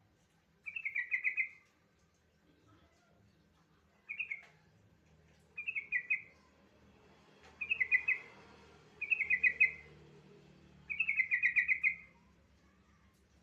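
Yellow-vented bulbul (trucukan) singing: six short phrases of quick chattering notes, each under a second, repeated every second or two.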